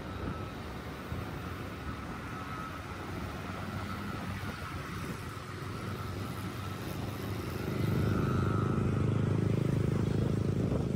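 Road traffic heard from a moving vehicle: the steady hum of engines and tyres of cars, trucks and motorcycles. About eight seconds in it becomes a louder low rumble.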